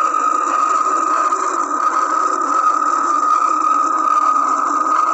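A steady hiss with a constant high-pitched whine, even and unbroken, with no heartbeat-like rhythm.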